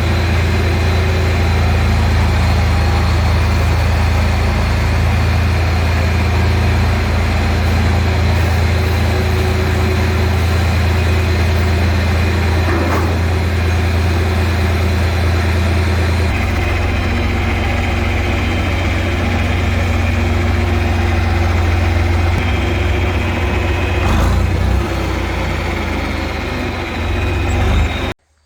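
An engine running steadily with a strong low hum that shifts slightly twice, then cuts off abruptly near the end.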